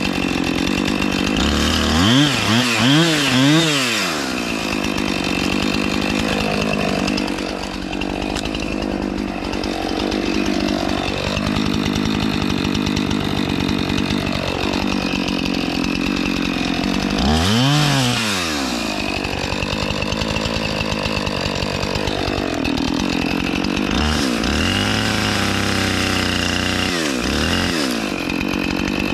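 Gas chainsaw running hard as it cuts into a tree trunk. The engine is revved up and down in quick blips about two seconds in, again around eighteen seconds, and several times near the end.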